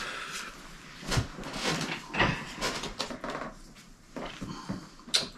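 Pokémon trading cards and a foil booster pack being handled at a table: irregular rustling and light knocks, the loudest a little before the end.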